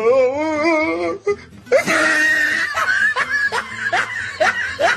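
Comedy laughter sound effect: a wavering, warbling laugh, then a run of quick rhythmic bursts of laughter, about three a second.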